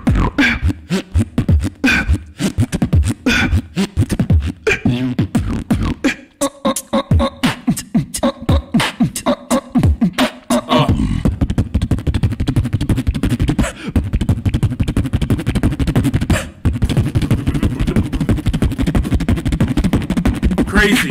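Solo human beatboxing into a studio microphone: fast, tight kick, snare and hi-hat clicks with short vocal bits. About halfway through, a sustained low buzzing bass comes in under the rapid percussion.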